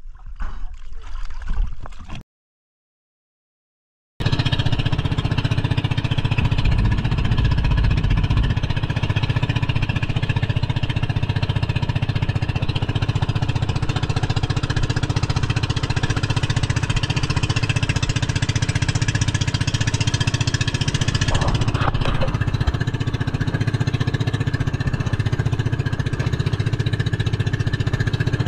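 Water sloshing at the boat's side for about two seconds, then a short gap of silence. After that, an outrigger boat's engine runs steadily with the boat under way, with a steady rush of wind and water.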